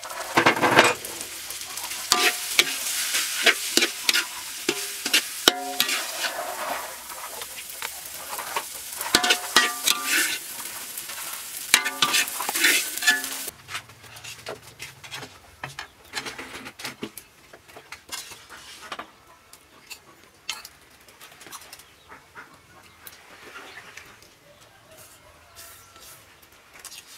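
Pork and glass noodles stir-frying in a wok: steady sizzling with a metal spatula scraping and tossing. About halfway through, the sizzling stops suddenly, leaving only quieter clinks of a spoon on a plate.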